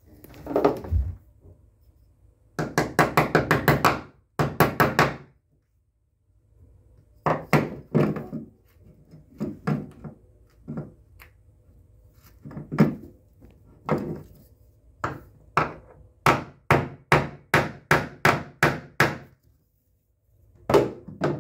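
Small metal drain hardware (bolt and wing-nut crossbar) knocking and clicking against a bathtub drain flange as it is fitted by hand. There is a rapid run of clicks a few seconds in, then separate sharp knocks that settle into about two a second.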